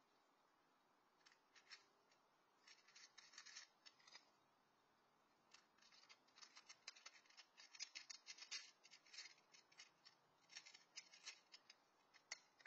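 Cat crunching dry kibble from a bowl: quick runs of small crisp crunches in several bursts, with short pauses between them.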